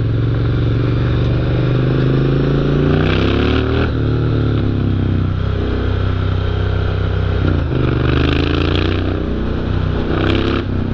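Motorcycle engine under hard acceleration on a dirt road, its pitch climbing and then dropping at each upshift: about four seconds in, about seven and a half seconds in, and near the end.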